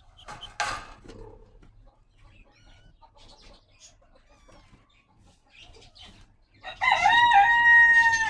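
A rooster crows once near the end: one long call held on one pitch with a small step partway, falling at the end. A brief rustle is heard about half a second in.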